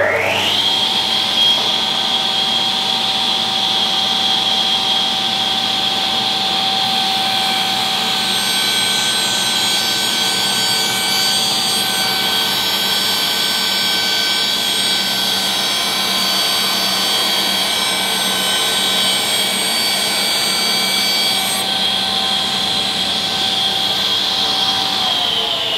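Axminster AT315BS cabinet table saw reaching full speed at the start, then running with a steady high whine while a strip of wood is fed through the blade on a test cut. Near the end it is switched off and its pitch starts to fall as the blade runs down.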